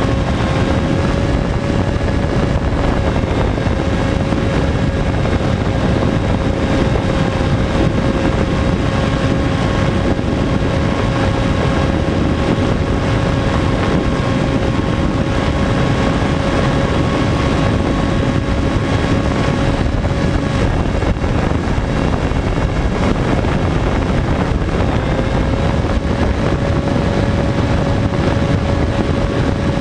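Sky Surfer RC foam glider's electric motor and propeller running at steady throttle, heard from on board with heavy wind rush over the microphone. A steady whine holds at one pitch, sagging briefly a few seconds in and again past the two-thirds mark.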